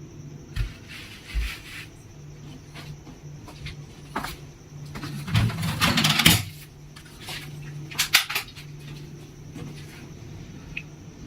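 Plastic toy gun being handled: scattered small clicks and clatter, with a louder stretch of rattling and scraping about halfway through and a few sharp clicks near the two-thirds mark.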